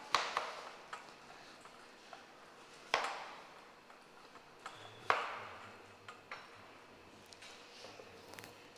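A few sharp clinks of metal kitchenware, such as a grater and utensils knocking against stainless steel bowls, spaced a second or two apart, each ringing briefly. The loudest come about three and five seconds in, with faint room tone between.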